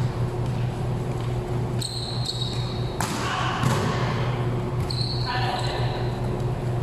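Volleyball rally in a large, echoing gym: the ball struck a few times, with the sharpest hit about three seconds in, sneakers squeaking on the court floor, and players' voices calling, over a steady low hum.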